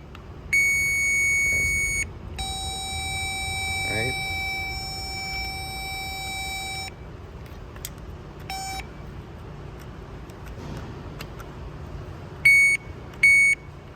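Electronic beeper sounding steady tones while a starting relay circuit is checked for power: a loud tone for about a second and a half, a longer tone of about four and a half seconds, then a short beep and two short, loud beeps near the end.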